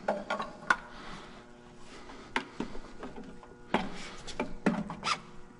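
A handful of sharp, separate metal clicks and knocks from a piston in a ring compressor and its connecting rod on guide studs as they are worked into a Detroit Diesel 60 Series cylinder bore.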